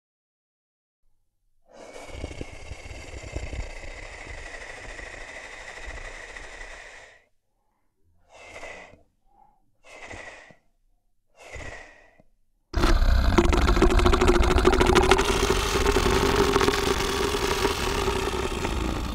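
Tyrannosaurus rex sound effect: a long breathy exhale, then three short breaths about a second and a half apart, then a loud, long roar starting about two-thirds of the way in and fading at the end.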